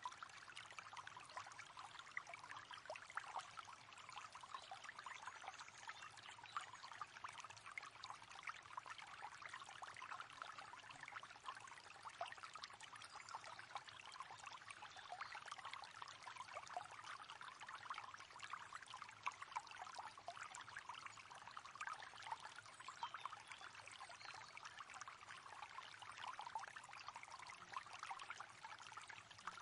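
River water flowing and babbling steadily, a continuous trickling splash.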